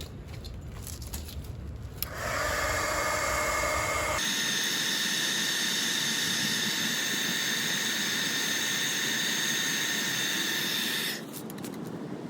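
Handheld heat gun switched on, its fan motor and blower running with a steady whine that shifts higher about four seconds in, then switched off near the end. It is heating the adhesive under a motorcycle tank badge to soften it.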